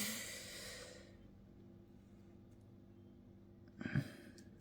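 A long breathy exhale, a sigh, fading out over the first second, then quiet room tone with a faint steady hum, and a short low vocal sound near the end.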